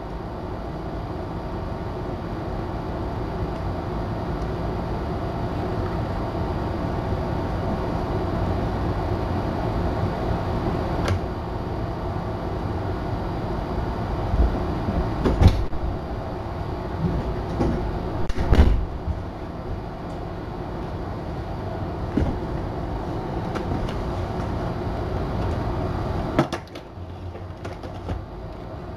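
A steady low rumble of background noise with a couple of sharp thumps as kittens scuffle about halfway through. Near the end the rumble drops, and plastic clicks and knocks come from a Dyson cordless stick vacuum's wand and attachment being handled.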